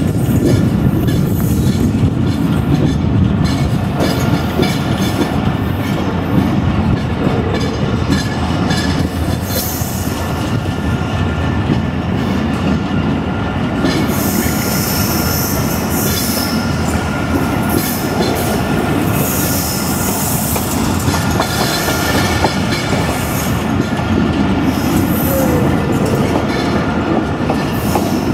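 Pak Business Express passenger train running along the track, heard from aboard the coach: a steady, loud rumble of wheels on rail with clickety-clack over the joints. Brief high squealing comes in around the middle.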